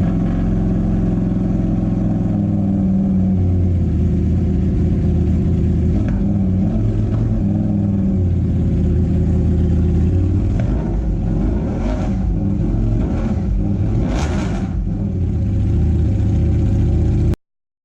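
Ducati Panigale V4 superbike's V4 engine running through an aftermarket exhaust, its pitch stepping up and down several times as it is revved and let fall back. A few sharper bursts come later, and the sound cuts off suddenly near the end.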